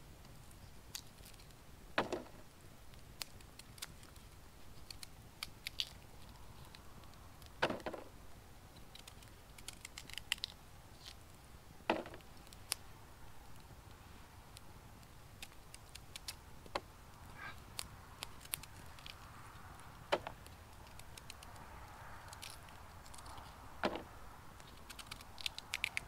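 Sharp knocks every few seconds, six in all, with light clicks and crackling between them.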